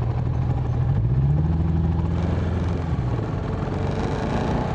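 Motorcycle engine running at a steady low idle; the engine note rises about a second in, holds for a couple of seconds, then falls back near three seconds.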